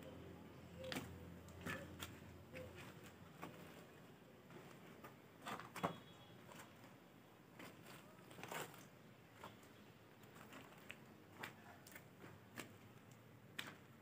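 Near silence with faint, irregular clicks and taps scattered through it.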